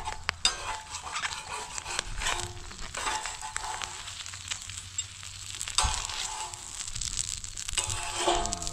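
An egg frying on a domed metal griddle over an open wood fire, with a metal spatula scraping and tapping across the griddle as the egg is turned, and the fire crackling underneath.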